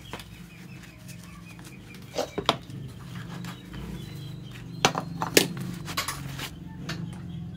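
Gloved hands packing fiberglass wool into a motorcycle open-pipe exhaust muffler: rustling and scraping with several sharp knocks as the metal pipe is handled, the loudest about five seconds in, over a steady low hum.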